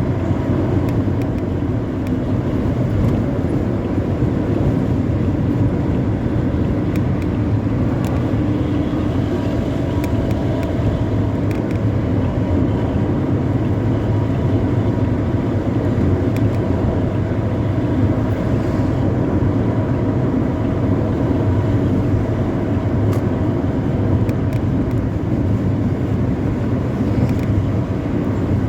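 Intercity bus's diesel engine running steadily at speed through a modified 'ngorok' (snoring) exhaust: a very loud, steady low drone.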